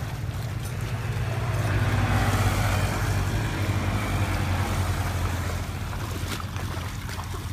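A motor engine running with a steady low hum, swelling louder about two seconds in and then fading, as if passing by.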